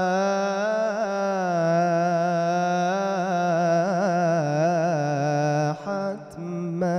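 A young man's solo voice singing an Islamic ibtihal (devotional chant) into a microphone: one long melismatic phrase with wavering, ornamented pitch, which ends about six seconds in, followed by a short final fragment.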